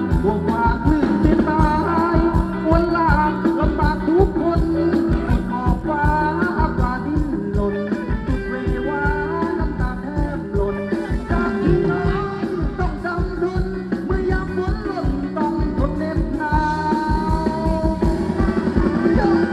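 Thai ramwong dance band playing live through loudspeakers: a steady, fast drum beat under a sung melody.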